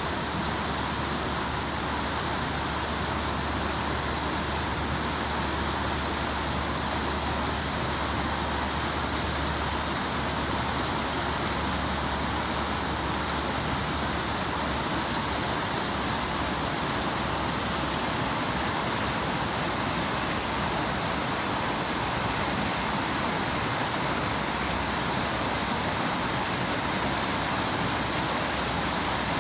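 Steady rush of the South Fork Snoqualmie River's white-water rapids pouring over rocks, the river running high in flood after heavy rain.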